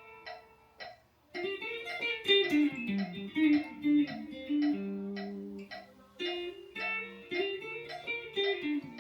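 Guitar played slowly, note by note, working through a practice line. The notes stop for about a second near the start, then the line picks up again with some notes held and left ringing.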